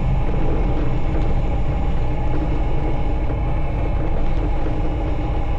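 Single-engine light aircraft's piston engine running at low power while the plane taxis over grass, heard from inside the cabin: a steady drone with a constant tone over a heavy low rumble.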